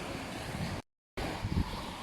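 Waves washing on a beach with wind buffeting the microphone. The sound cuts out completely for a moment about halfway through, then returns a little quieter with a couple of low wind thumps.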